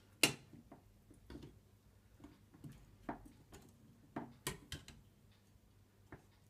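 Long metal spoon stirring broth in a stainless steel pot, clinking against the pot in a few irregular taps, the loudest about a quarter second in.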